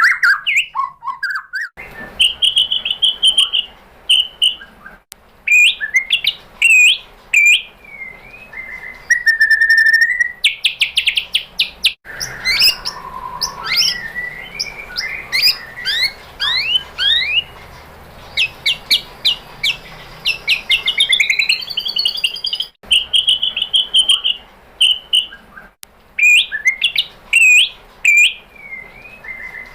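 White-rumped shama singing loud, varied phrases of clear whistles, rapid trills and fast chattering note runs, with brief pauses between them. This is a lure song meant to provoke caged shamas into singing.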